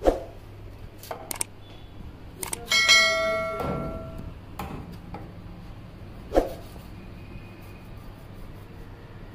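Sharp knocks of a heavy fish-cutting knife against a wooden chopping block, about half a dozen strikes. One bright bell-like ring with many overtones starts a little under three seconds in and fades over about a second.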